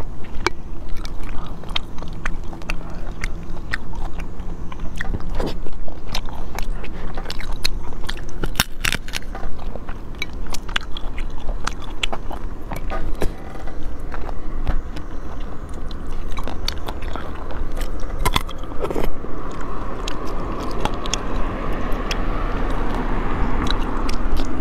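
Close-miked eating: spicy shellfish in chili oil being pulled apart by hand and chewed, with many small clicks and cracks of shell.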